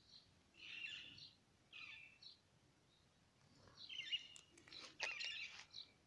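Parakeets giving short, high chirping calls in separate bursts: about a second in, again around two seconds, then a busier run of calls in the second half, mixed with a few sharp clicks.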